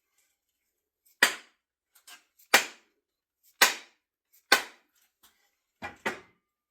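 Sharp wooden knocks driving an axe head further down onto its new wooden handle. There are four hard strikes about a second apart, then two lighter ones in quick succession near the end.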